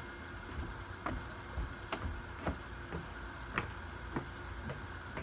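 Footsteps walking away at an even pace of about two steps a second, each a short sharp slap, over a steady background hum.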